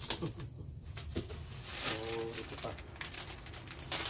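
Items being unpacked from a cardboard box: paper and plastic wrapping rustling and crinkling, with a sharp click near the start. A short pitched call sounds about two seconds in.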